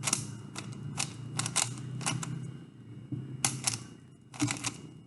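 Rubik's Cube layers being turned by hand: quick plastic clicks in irregular bunches of two or three.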